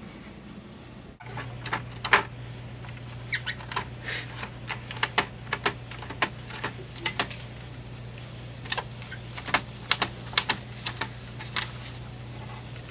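Irregular clicks and taps of a cat's paws and claws on the hard plastic top and paper tray of an HP printer-fax machine, over a steady low hum that starts about a second in.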